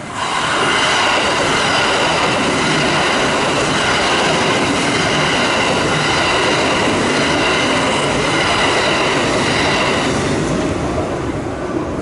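A Kintetsu electric train passes close by: a loud, steady rush of wheels and running gear that starts suddenly, carrying a steady high-pitched whine above it, and eases off over the last couple of seconds as the train clears.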